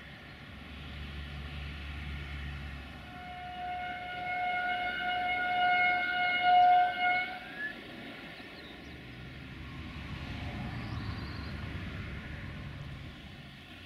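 A train horn sounding one long, steady blast of about four seconds, bending slightly up as it stops. A low rumble of railway traffic can be heard before and after it.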